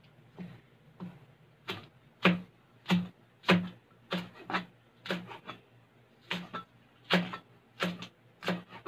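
Broad cleaver-style kitchen knife chopping spring onions on a cutting board: a steady run of sharp knocks, a little under two a second.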